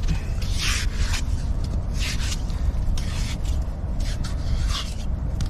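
Digging into wet beach sand after a burrowing razor clam, the tool scraping through the sand in short strokes about once a second.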